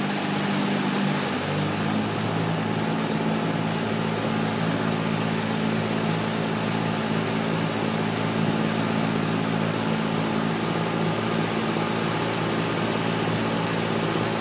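Outboard motor of a small boat running steadily at low speed, its note rising slightly about a second and a half in, over a constant rush of wind and water noise.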